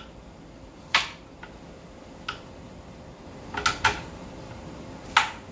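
A small kitchen knife striking a plastic cutting board while cutting vegetables: a few irregular sharp knocks. The loudest comes about a second in, with a quick pair near four seconds and another knock near the end.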